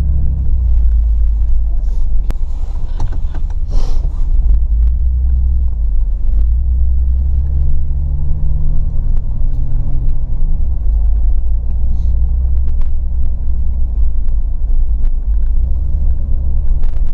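Low, steady rumble inside the cab of a 1989 Chevrolet S-10 Blazer with its 4.3 V6, driving along a snowy trail, with engine drone and tyre noise and a few sharp knocks in the first few seconds.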